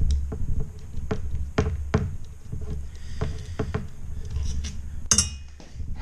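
A small electric motor being handled and turned over on a workbench: a string of knocks and scrapes from its metal housing against the bench, over a low rumble, with one sharp metallic clink about five seconds in.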